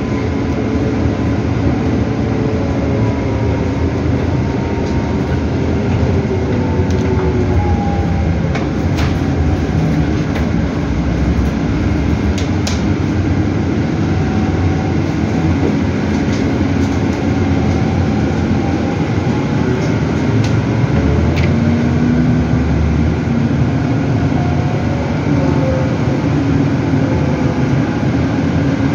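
Inside a CAIO E-Millennium battery-electric bus on the move: steady road and tyre rumble with a whine that rises and falls as the electric drive speeds up and slows. Occasional light clicks and rattles from the cabin fittings, with the air conditioning running.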